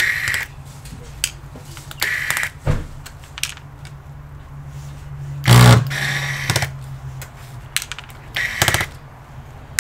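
Electric screwdriver running in short half-second bursts as it backs screws out of a laptop's base, with small clicks of the bit and screws. A louder knock comes about five and a half seconds in, over a steady low hum.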